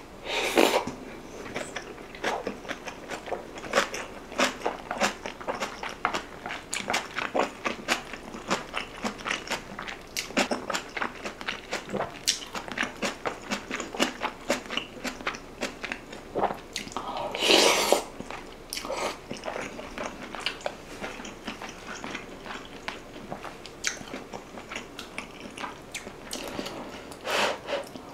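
Close-miked chewing of a mouthful of rice soaked in beef-rib soup, topped with kimchi: a steady run of small wet smacks and crunches. There is one louder burst of sound about two-thirds of the way through.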